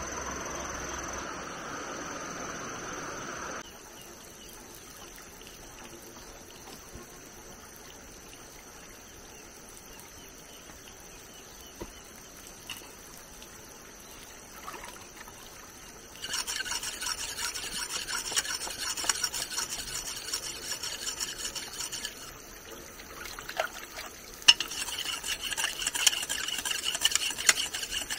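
Quiet outdoor background, then, from a little past halfway, rapid scraping and rubbing with water splashing as hands work at the stone edge of a pond, with a few sharp clicks.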